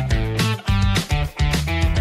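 Background music: an upbeat guitar-led track with a steady beat and bass.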